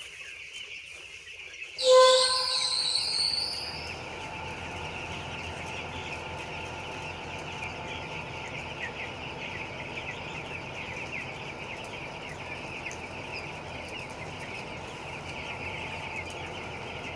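A large flock of young chicks peeping, a dense, steady chatter of high chirps. About two seconds in, a loud pitched sound with a rising whine cuts in over the flock and fades after a second or two.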